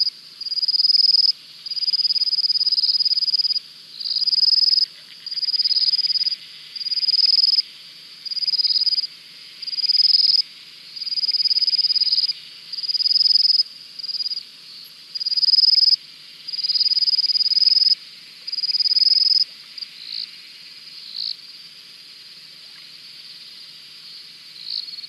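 High trilling animal calls, each about a second long and repeated roughly once a second, with a fainter steady chorus underneath; after about 20 seconds the trill thins to a few short chirps.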